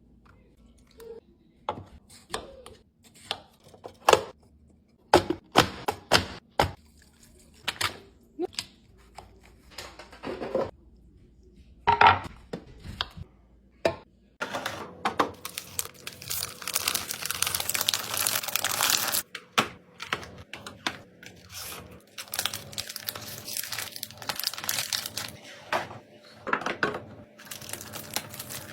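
Items being handled and set down in short clicks and knocks. About halfway through comes a long stretch of plastic packaging being torn open and crinkled, densest for the first few seconds.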